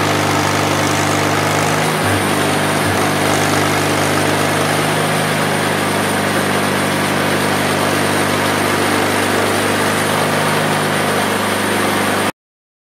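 Mighty Mite bandsaw mill running steadily, its engine driving the band blade through a spruce cant. The sound stops abruptly near the end.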